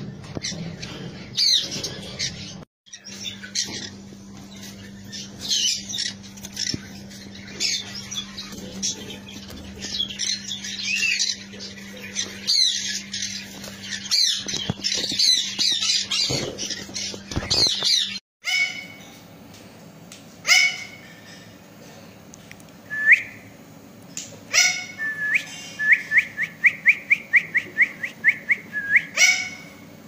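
Caged ring-necked parakeets and conures squawking and chattering, with many calls overlapping over a steady low hum. After a cut about two-thirds of the way through come single sharp screeches, then a quick run of about a dozen short rising calls near the end.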